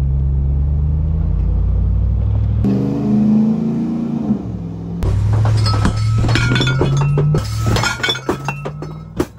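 Ram TRX's supercharged V8 engine running with a steady low rumble, then rising in pitch as it speeds up for a couple of seconds. From about halfway, loose dishes, glasses and fittings inside the towed caravan rattle and clink over the road drone.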